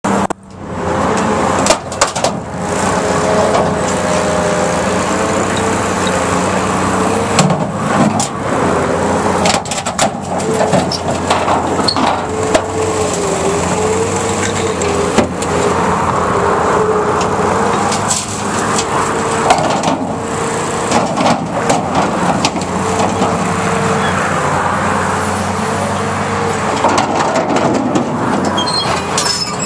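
Hydraulic excavator's diesel engine running under load, with a hydraulic whine that rises and falls as the boom and demolition shear work. Repeated sharp clanks and bangs of steel guardrail being gripped, sheared and dropped by the Okada shear are scattered throughout.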